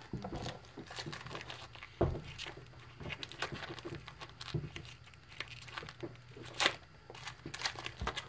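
Trading card pack's foil wrapper crinkling and tearing as it is opened, with cards rustling, and sharper rustles about two seconds in and again near seven seconds.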